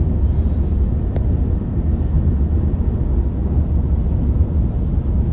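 Steady low rumble of road and tyre noise inside a car driving on a freeway ramp, with a faint click about a second in.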